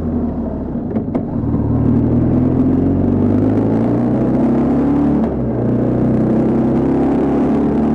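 BMW R1200GS boxer twin engine running under throttle, heard from on board the motorcycle. Its note sags near the start, with a couple of light clicks about a second in, then climbs steadily, dips briefly about five seconds in and climbs again.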